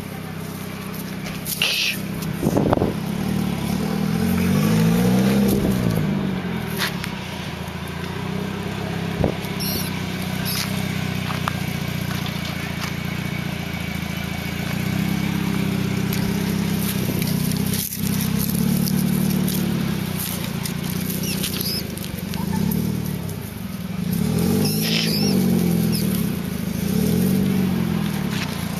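An engine running steadily, its pitch rising and falling back several times as it revs.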